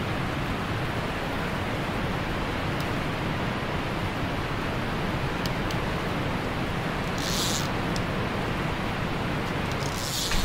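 Steady rushing outdoor noise with a heavy, unsteady low rumble, two brief high hisses about seven seconds in and near the end, and a few faint ticks.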